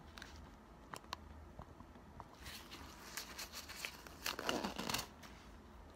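Quiet rustling and crinkling of hands in disposable gloves, loudest around four to five seconds in, with a couple of light clicks about a second in.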